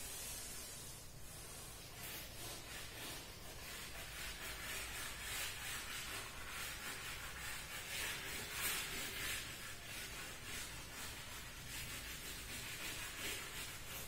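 Blue chalk scratching back and forth across a chalkboard in short, repeated strokes, a dry hiss as a background area is shaded in.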